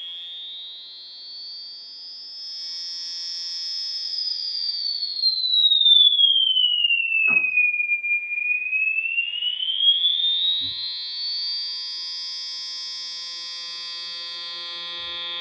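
Csound emulation of the EMS VCS3's resonant voltage-controlled filter, fed a low-frequency modulated ramp wave: a high whistling tone glides slowly up, falls to its lowest about halfway through, and rises again, over a stack of steady lower tones. A faint thump comes about seven seconds in.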